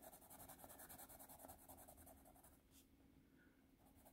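Faint scratching of a Reliance Ravenwood 1080 No. 2 graphite pencil shading a small patch on graph paper. It stops about two and a half seconds in.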